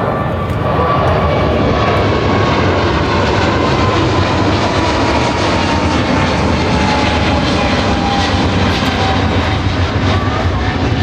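Jet airliner passing close by, its engines loud throughout, with a thin whine that slowly falls in pitch as it goes past.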